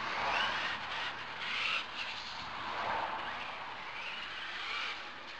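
Traxxas E-Maxx RC truck with a Hobbywing 150A brushless motor system being driven on wet pavement: the motor whine rises and falls with the throttle over tyre hiss.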